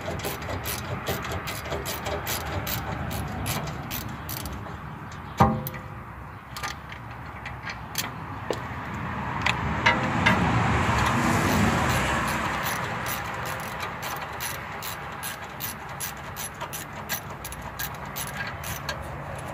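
Ratchet wrench clicking rapidly, about four clicks a second, as the 14 mm bolts holding a Toyota Tacoma's lower ball joint to the steering knuckle are backed out. There is a single louder metal knock about five seconds in, and a broad swell of noise around ten to twelve seconds in.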